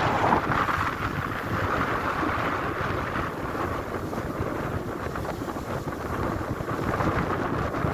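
Wind buffeting the microphone in a steady, gusty rumble, with the wash of shallow sea water beneath it.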